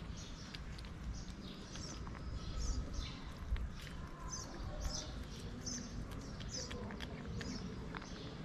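Kitten chewing wet cat food from a plastic dish with soft clicks and smacks, while small birds chirp again and again in the background over a low steady rumble.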